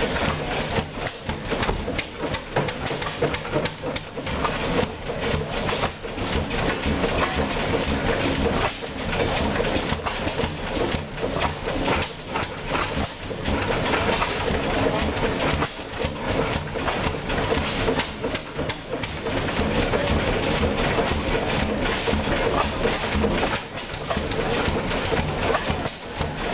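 Large antique stationary gas engine running, a loud continuous mechanical clatter and exhaust.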